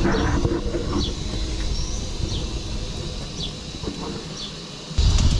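Steady rushing of the steam blower in the chimney of a third-scale Burrell showman's traction engine while it raises steam, with a few short high chirps over it. The rushing eases about four seconds in, and a louder low rumble comes in near the end.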